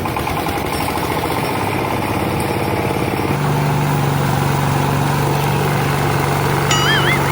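Engine of a rice harvesting machine running, its fast pulsing settling into a steady hum about three seconds in. A short warbling high tone near the end.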